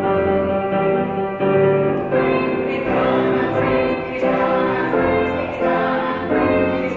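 Children's choir singing with piano accompaniment, the notes changing every half second or so.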